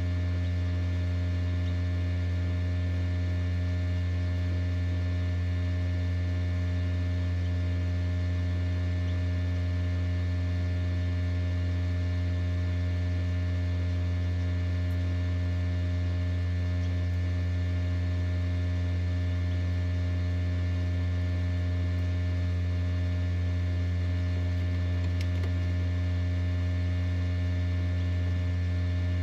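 Steady electrical hum of an egg incubator: a strong low tone with a ladder of fainter higher tones, unchanging throughout.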